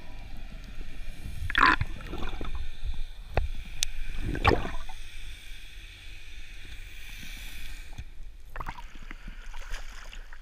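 Muffled water sound recorded underwater: a low gurgling rumble with a few sudden sharp knocks, as a spearfisher rises with a speared fish. The water sound changes as the camera breaks the surface near the end.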